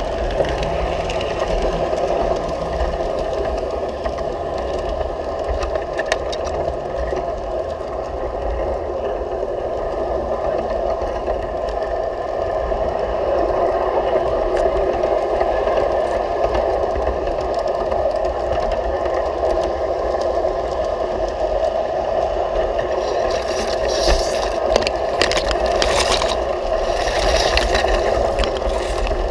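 G scale model train running along garden track, heard up close: a steady mechanical whirr from its motor and gearing, with wheel clicks and rattle over the rails. Near the end, leaves and grass brush and scrape past.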